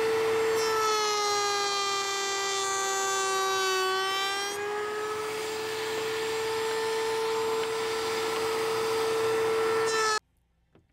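Router in a router table spinning a 45-degree chamfer bit, a steady high whine. About a second in its pitch sags slightly and the cutting noise grows as the bit takes a chamfer off a maple block, then the pitch recovers as the cut ends. The sound cuts off suddenly near the end.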